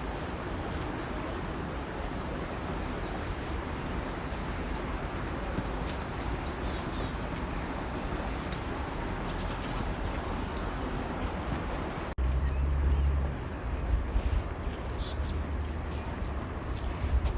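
Small birds giving short, high chirps every few seconds over a steady outdoor hiss. About twelve seconds in the sound cuts suddenly, and a low rumble comes in after it.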